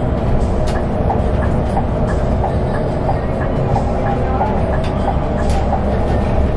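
Cabin noise of a Scania K410 coach cruising at speed: a steady low drone of engine and road, with a regular light ticking about two to three times a second.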